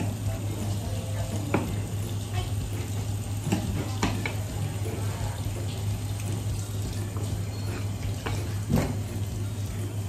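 Tap water running steadily into a sink over a low hum, with a few sharp knocks, about four, scattered through it.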